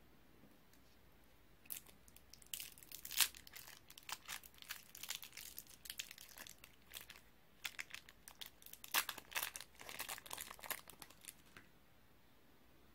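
Wrapper of a soft chewy candy crinkling as it is untwisted and peeled open by hand. The rustling starts a couple of seconds in, comes in two stretches with a short break in the middle, and stops about a second before the end.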